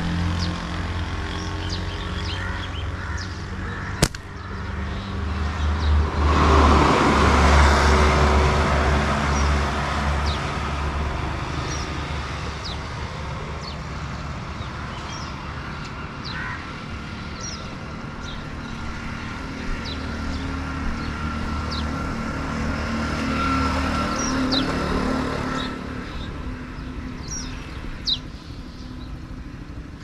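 Vehicles passing over a steady low engine hum: one swells and fades about six to ten seconds in, and another passes near the end. Small birds chirp throughout, and there is a single sharp click about four seconds in.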